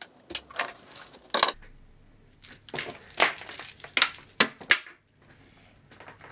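Small metal aviation connectors and cable clinking and rattling as they are handled and plugged into a panel socket. There are a few sharp clicks about a second in, then a longer bout of clatter with a steady high whine under it that stops about five seconds in.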